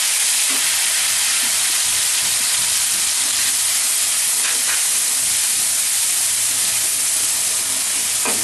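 Onion paste frying in hot oil and ghee in a kadai: a loud, steady sizzle.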